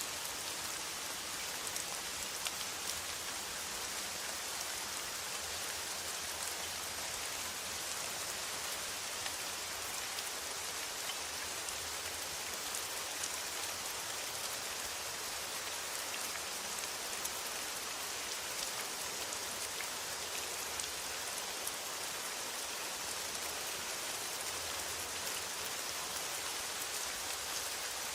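Steady rain falling on a metal roof: an even hiss of rainfall with scattered light ticks of individual drops.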